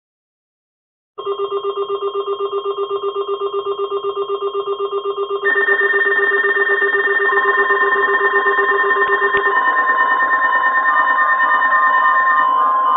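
Electronic alert alarm from an Alertworks EAR-10 emergency alert receiver: a fast-pulsing beeping tone, several beats a second, starts about a second in. About four seconds later higher tones join, and it builds into a louder, denser warbling alarm.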